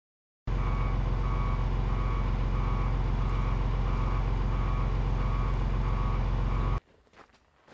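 A heavy vehicle's engine running with its backup alarm beeping about twice a second: the vehicle is reversing. The sound starts and cuts off abruptly.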